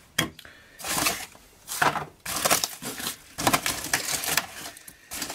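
Cardboard packing being handled and pulled out of a box, rustling and crinkling in irregular bursts, with a sharp click just after the start.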